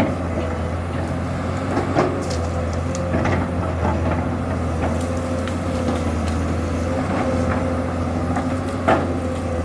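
Komatsu PC200-7 excavator's six-cylinder diesel running steadily under a constant hum and whine, with a few sharp cracks and knocks scattered through, about four in all.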